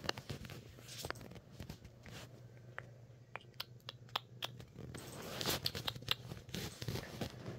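A tabby cat mouthing the quilted bedspread it lies on, making many irregular small clicks, busiest about two thirds of the way through, over a steady low hum.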